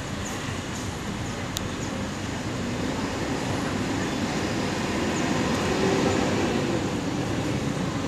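A bus engine rumbling as the bus pulls away, over steady traffic noise; the rumble grows a little louder in the second half.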